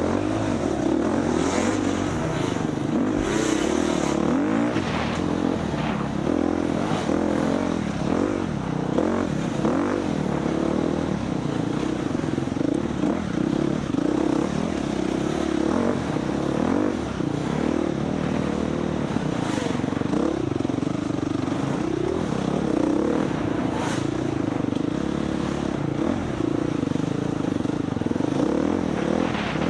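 Dirt bike engine revving up and down continuously while racing off-road, its pitch rising and falling with the throttle, with occasional short knocks.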